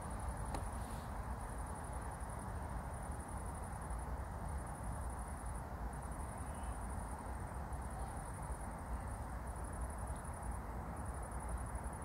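An insect chirping high and thin in repeated trains about a second long, with short gaps between them, over a steady low rumble.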